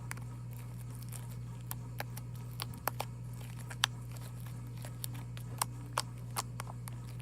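Slime being kneaded and stretched by hand, giving irregular sticky clicks and small pops.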